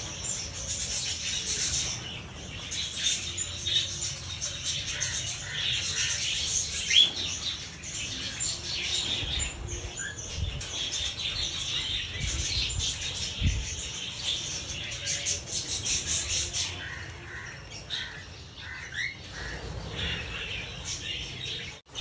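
A flock of cockatiels chattering and chirping steadily, with many short rising calls.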